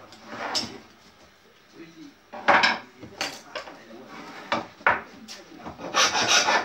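Hand tools being handled and worked against wood on a wooden workbench: a series of separate clatters and scrapes, with a denser run of scraping strokes near the end.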